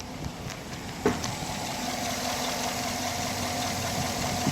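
2010 Chevy Silverado's LS V8 idling steadily, with no misfire now that a bad lifter on cylinder 7 has been replaced. A single knock about a second in, after which a steady hum joins the idle.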